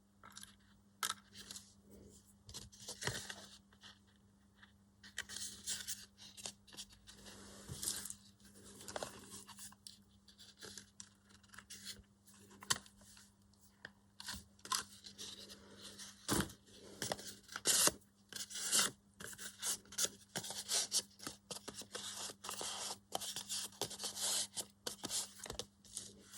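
Paper crafting at a work table: paper being cut and handled, with scattered snips, rustles and small sharp clicks at irregular intervals.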